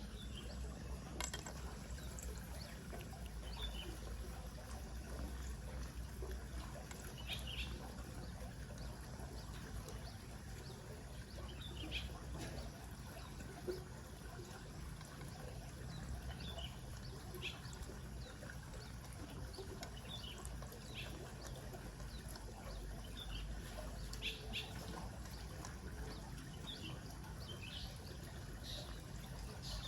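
Rushing river water running steadily, with short high chirps scattered every few seconds.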